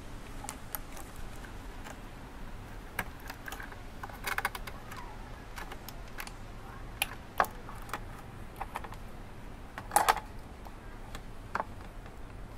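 Scattered light clicks and small plastic knocks from hands working the parts of an Epson L120 printer's frame and upper motor as its cable is freed. A denser, louder run of clicks comes about ten seconds in.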